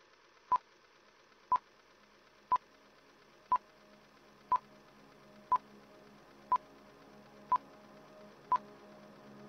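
Film-leader countdown beeps: a short high beep once a second, nine times, over faint hiss, with low tones slowly swelling beneath.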